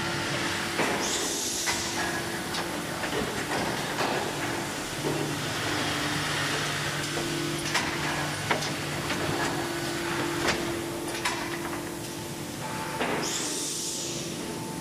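Factory hall ambience: a steady machine hum under a constant hiss. Two short bursts of louder hiss come about a second in and near the end, with scattered sharp clicks and knocks between them.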